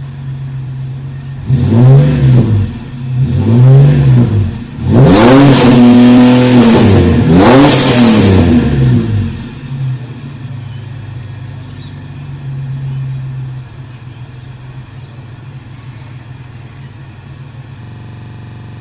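Holden VN Commodore engine, warmed up, idling and revved: two short blips, then a longer rev held high for about four seconds, then back to a steady idle with a small lift midway. It breathes through Pacemaker extractors, the stock catalytic converter and a single 2.5-inch muffler.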